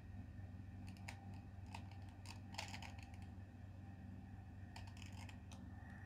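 Faint plastic clicks and scrapes of a 2x2 Rubik's cube's layers being turned by hand, in a few short irregular runs of moves.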